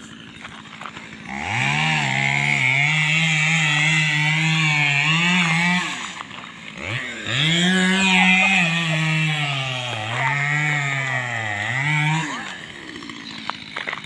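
Chainsaw revving high while cutting wood, in two long runs of about four and five seconds with a brief drop in between; its pitch sags and recovers as the chain works through the cut.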